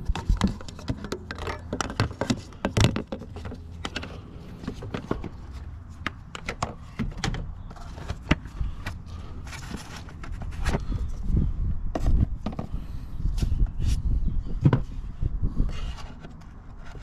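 Irregular clicks, knocks and scrapes of a screwdriver and hands working at the plastic retaining tabs of an engine cover.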